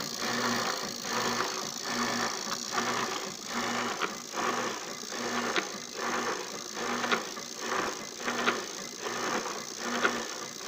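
Top-loading washing machine running, its motor humming in short regular pulses a little more than once a second, with clicks and knocks from the belt-and-pulley drive. It is running on a substitute control board, which shows that the machine's own board was the fault.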